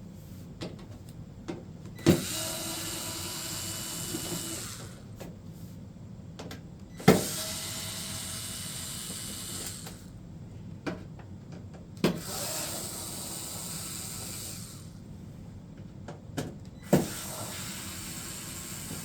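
Cordless drill-driver backing screws out of a TV's rear metal panel: four runs of about two to three seconds, each starting with a sharp click, with small clicks and taps between them.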